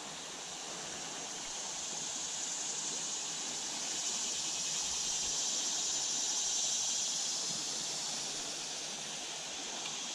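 River current rushing over a riffle around a drifting kayak: a steady hiss of moving water that swells slightly past the middle, then eases.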